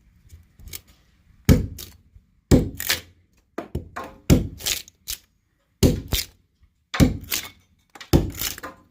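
Hammer blows on a wood chisel, chopping out the log wood inside a hole saw's kerf: about a dozen sharp thunks at uneven spacing, often in pairs about half a second apart.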